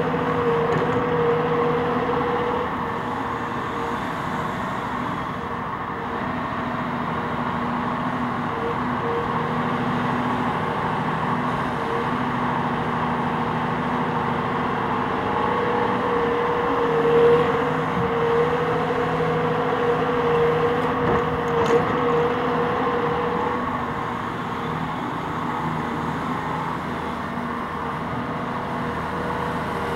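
Cat 374F excavator's diesel engine and hydraulics running steadily under load as it swings and digs, with a constant whine over the engine drone. A couple of sharp knocks come a little past halfway.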